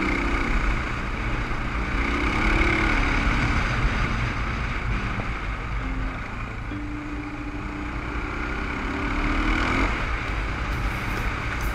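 Dual-sport motorcycle engine running under way on a dirt road, heard from a helmet camera with wind rushing over the mic. The engine note climbs and falls with the throttle, easing off briefly about halfway through and again near the end.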